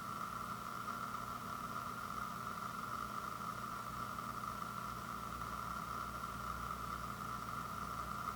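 Steady background hum and hiss, unchanging, with no handling or rustling sounds.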